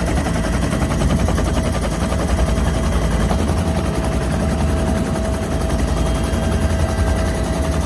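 Helicopter running steadily: rapid, even rotor chop over a low rumble, with a steady turbine whine.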